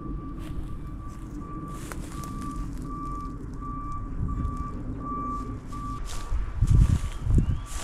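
A vehicle's reversing alarm beeping in an even rhythm, about three beeps every two seconds, over a low steady engine hum. The hum stops about six seconds in, and a few heavy low thumps follow near the end.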